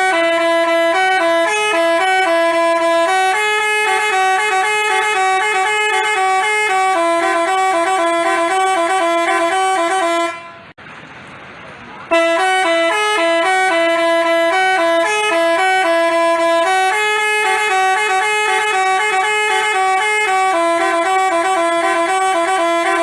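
Telolet musical bus horn of the Basuri type playing a tune of held, stepping horn notes. The tune plays through, breaks off briefly a little before halfway, then plays again the same way.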